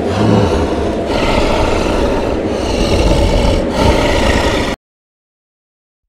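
Loud, steady rushing and scraping noise, like snow spray blasting, that cuts off suddenly near the end, followed by a second and a half of silence.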